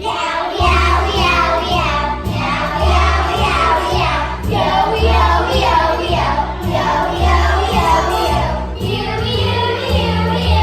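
Children singing a musical-theatre song together with instrumental accompaniment and a moving bass line.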